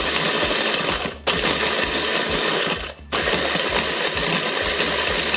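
Electric food chopper running, its spinning blade crushing arrowroot biscuits into crumbs. The motor stops briefly twice, about a second in and about three seconds in, then starts again.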